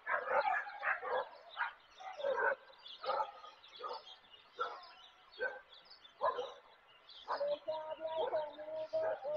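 Repeated short animal calls, about one a second, with a steady held tone joining in from about seven seconds in.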